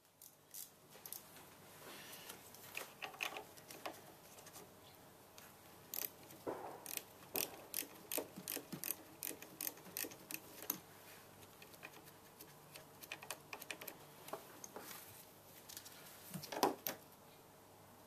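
Socket ratchet and metal tools clicking and tapping while the nuts on a car battery's fittings are undone: irregular light clicks, thickest about six to eleven seconds in, with a sharper knock near the end.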